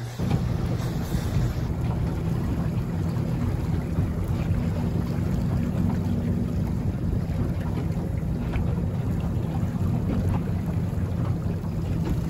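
A small boat's engine running steadily underway, a low hum made of several steady tones, with wind buffeting the microphone and water splashing.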